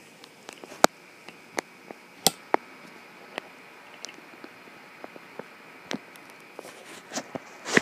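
Scattered sharp clicks and taps at irregular intervals, over a faint steady high-pitched whine.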